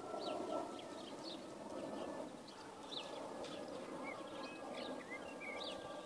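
Birds chirping in short calls here and there over a steady outdoor background noise.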